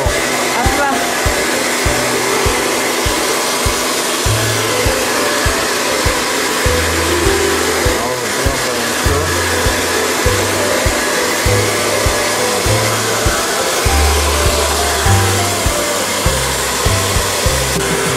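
Tefal hand-held hair dryer blowing steadily while drying a dog's wet coat, with background music underneath.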